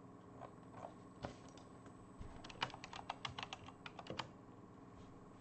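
Typing on a computer keyboard. A few single clicks come first, then a quick run of about a dozen keystrokes past the middle.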